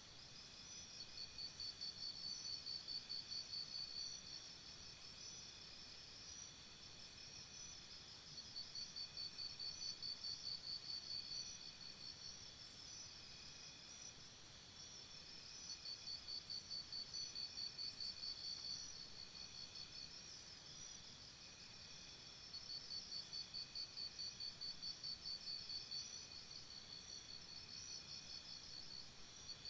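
Faint insect trilling: rapid high-pitched pulses in bouts of about three seconds that repeat roughly every seven seconds, over a steady high background hum.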